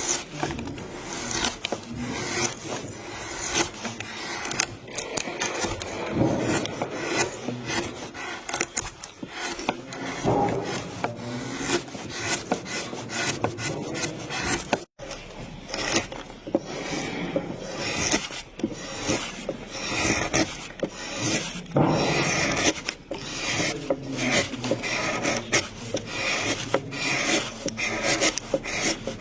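Hand tools working wood: repeated rasping and scraping strokes on wood, with a brief break about halfway through.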